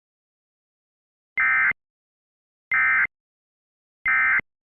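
Emergency Alert System end-of-message data bursts: three short, identical digital screeches of SAME header tones, about a second and a third apart, with silence between them. They mark the end of the alert message.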